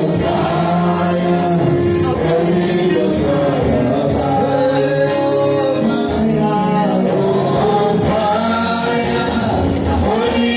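Gospel worship music: voices singing a melody over instrumental accompaniment at a steady level.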